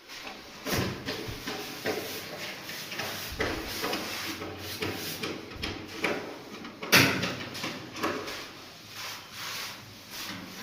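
A run of irregular knocks, clunks and scraping clatters, the sharpest one about seven seconds in.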